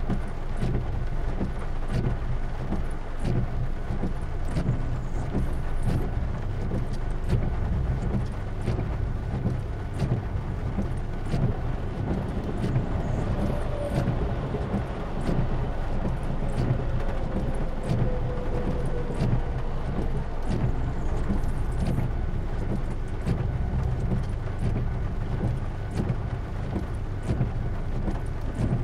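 Steady rain with a heavy low rumble and scattered sharp drop ticks. A faint whine slides slowly down in pitch about halfway through.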